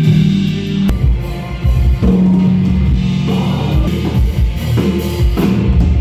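Rock music: guitar over a drum kit, with heavy drum hits coming in about a second in.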